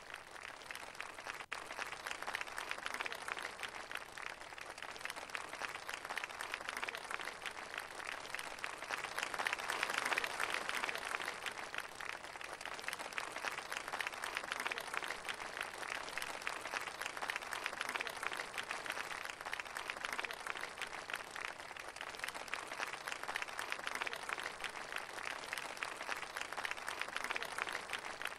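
Studio audience applauding steadily, starting suddenly and swelling louder about ten seconds in.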